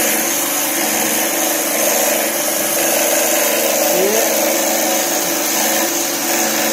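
A high-pressure washer unit runs steadily: a 7.5 HP three-phase 1440 rpm electric motor drives a three-plunger ceramic pump under load, as its regulator is turned up and the pump builds pressure toward about 250 bar. A brief rising tone sounds about four seconds in.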